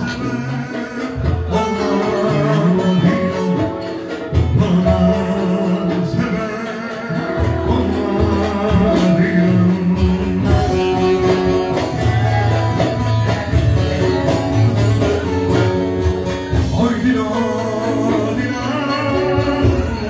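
A man singing live into a microphone over a band, amplified through the club's speakers, with long held, bending vocal notes.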